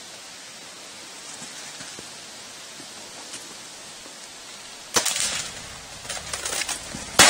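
A Mathews Heli-M compound bow is shot about five seconds in: one sharp crack as the string is released, trailing into brief rustling, then a few small clicks. Another loud sharp crack comes at the very end. Before the shot there is only a low steady hiss.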